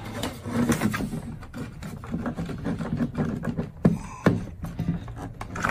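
Handling noise from a Viqua UV water-system controller box and its power cords being moved about on a desk, with a few sharp clicks in the second half.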